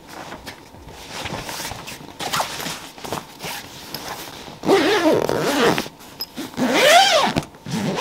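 Zipper on a fabric storage bag being pulled shut, with fabric rustling as the bag is handled. Two louder zip strokes come in the second half.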